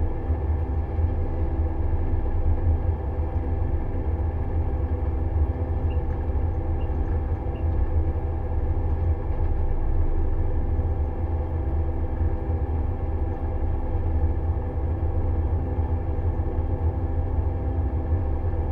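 Pellenc Optimum 890 grape harvester running steadily as it drives along a vine row, heard from inside the cab: a constant low engine drone with several steady whining tones above it.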